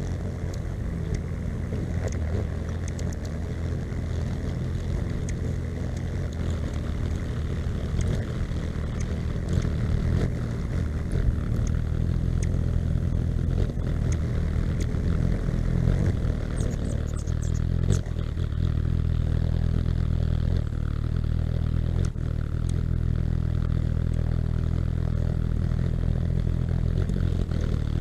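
Hummingbirds' wings humming as they hover close by, a steady low buzz, with a few brief high chirps about sixteen seconds in.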